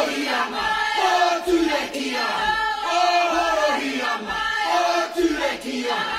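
A group of voices singing together in short, repeated melodic phrases, over a low beat about once a second.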